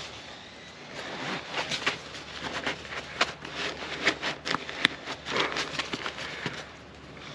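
Nylon compression sack being cinched down: its straps pulled through the buckles and the fabric rustling, a dense run of short rasps and crinkles starting about a second in.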